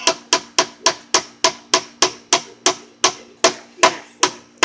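Hammer driving nails into a wooden fence post, a fast, even run of sharp blows at about three to four a second, the last few a little slower.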